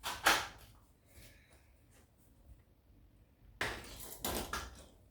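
Handling noise from small plastic parts: two short bursts of rustling and clatter, one at the start and another lasting about a second near the end.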